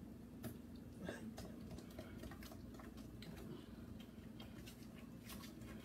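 A spoon stirring cake batter by hand in a glass mixing bowl, clinking and scraping against the glass in faint, irregular ticks.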